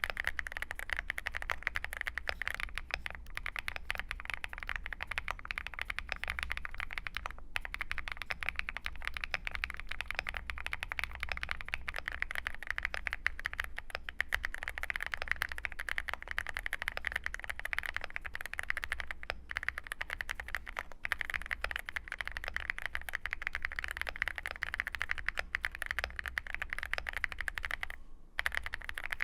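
Fast, continuous typing on a full-aluminium custom mechanical keyboard fitted with Bsun Red Wine linear switches, a dense stream of key clacks with a brief pause near the end.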